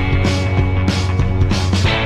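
Rock music with a steady drum beat and a sustained bass line.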